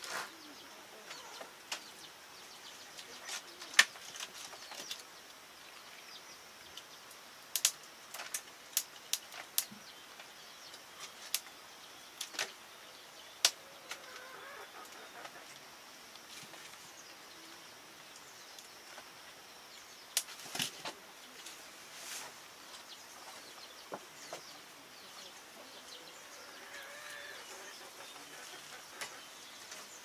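Irregular sharp clicks and knocks from pots, utensils and firewood being handled at a wood fire, a few of them loud, over a faint steady high hiss of insects.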